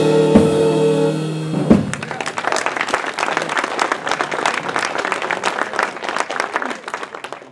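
A saxophone band of altos, tenors and baritone with piano, bass and drums holds its final chord and cuts off on a sharp last hit a little under two seconds in. Audience applause follows and fades away near the end.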